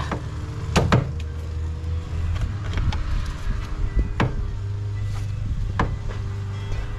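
A few sharp metal clicks and knocks as a screwdriver or pry bar is worked into place against a stuck oil filter, the strongest about a second in. Under them a motor vehicle engine runs steadily.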